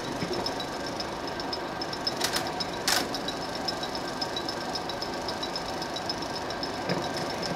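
16mm film projector running: a steady mechanical rattle with a fast, even ticking from the film-advance mechanism. Two short crackles come about two and three seconds in.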